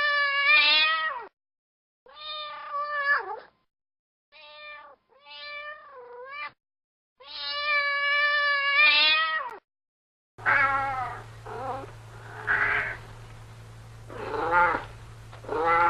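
Domestic cat meowing repeatedly: several drawn-out meows separated by silent gaps, then from about ten seconds in a different recording of shorter meows over a steady low hum.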